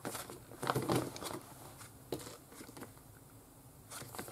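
Plastic trading-card sleeve pages in a ring binder being turned by hand: soft crinkling rustles with a few light clicks.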